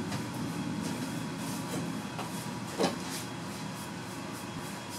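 A brush applying shellac to mahogany pieces, its strokes faint over a steady low hum, with one short sharp tap just before three seconds in.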